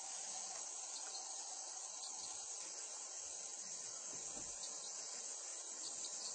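Steady high-pitched chorus of insects.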